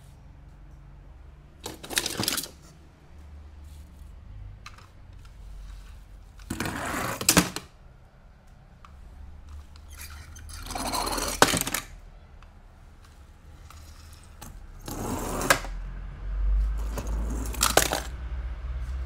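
Toy car packaging being opened and handled: five short bursts of rustling, each with sharp clicks, separated by quiet gaps.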